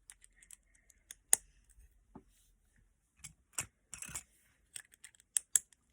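Lego bricks clicking and clattering as they are handled and pressed together: a string of irregular sharp plastic clicks, the loudest about a second in.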